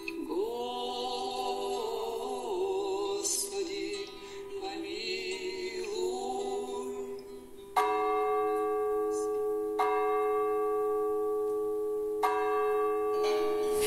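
Slow singing with held, wavering voices, then a bell struck three times about two seconds apart, each stroke ringing on.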